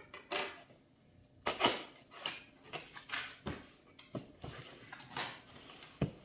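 Irregular rustling and scraping of things being handled, with a sharp knock near the end.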